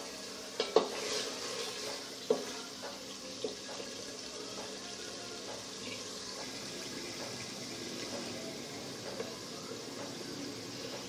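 Kitchen cooking sounds: a utensil clinking sharply against a pot a few times in the first few seconds, over a steady hiss.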